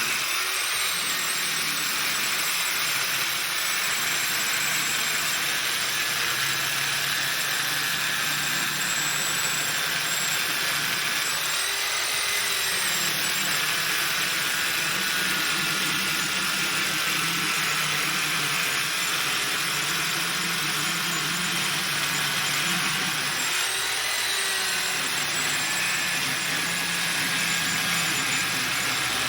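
Corded power saw ripping lengthwise through a copper-treated 2x4, running continuously with a steady whine that sags in pitch under load and recovers a few times.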